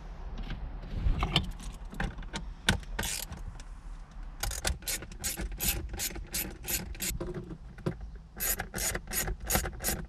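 Quarter-inch drive ratchet with a T20 Torx bit, its pawl clicking as it is swung back and forth to back out screws. Scattered knocks of handling come first, then two runs of quick clicks, about four a second, with a short pause between them.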